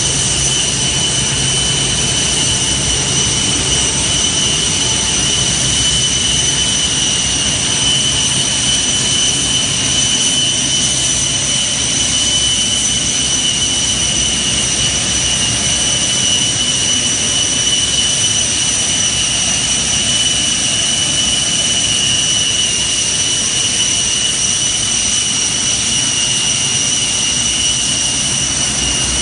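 Boeing 747-400's jet turbines running: a loud, steady whine of two high piercing tones over a rushing roar.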